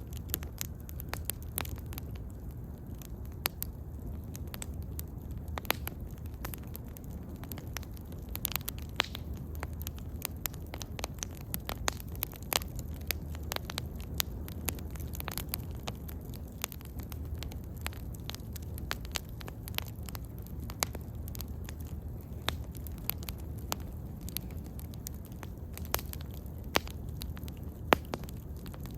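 Bonfire crackling: irregular sharp pops and snaps over a low steady rumble, with a few louder pops, the loudest near the end.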